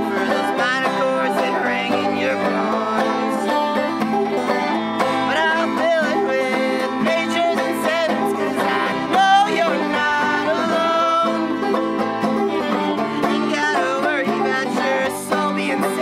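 A small acoustic group playing an original song live, with plucked strings and melody lines that carry on steadily throughout.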